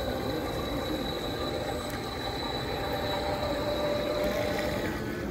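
Radio-controlled model boats running on the water, their small motors and propellers giving a steady whine with a churning background; one of the tones drops away near the end.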